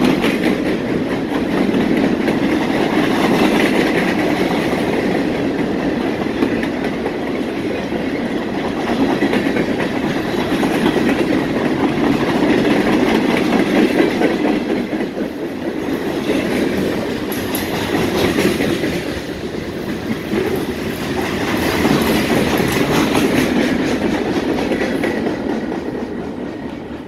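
Freight cars of a Norfolk Southern train rolling past at speed, a steady noise of steel wheels on rail with regular clicking. It fades near the end as the last car goes by.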